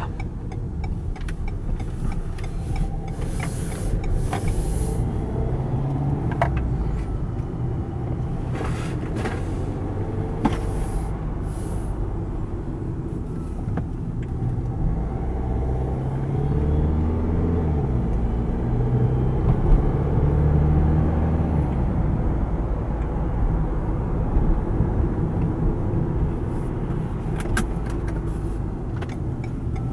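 Cabin noise inside a 2016 Renault Espace driving at town speed: a steady low engine and road rumble, with the engine note rising and growing louder a little past halfway as the car speeds up. A few short hisses come in the first dozen seconds.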